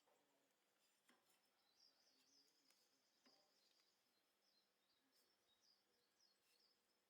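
Near silence, with faint high chirping like small birds and a couple of soft clicks.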